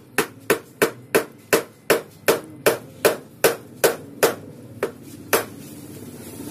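A hammer repeatedly striking the handle of a screwdriver, driving it into an old car battery's cells to break them open. The sharp knocks come in a steady rhythm of about three a second and stop about five seconds in.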